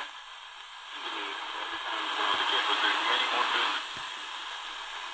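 Tecsun DR-920C portable radio's speaker hissing with medium-wave static as its analog dial is tuned across the top of the AM band. A weak station's voice comes faintly through the noise from about a second in and fades near four seconds.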